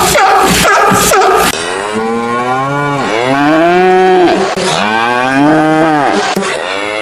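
Cow mooing: a run of long, loud moos, each rising and then falling in pitch, following a second and a half of rhythmic background music that cuts off.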